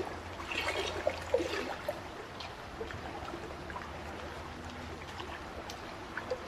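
Water trickling and splashing, full of small drips and gurgles. It is busiest in the first two seconds, with a louder splash just over a second in.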